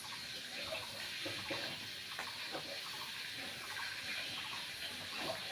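Steady hiss with faint scattered crackles from cooking at a clay stove fed with dry leaves.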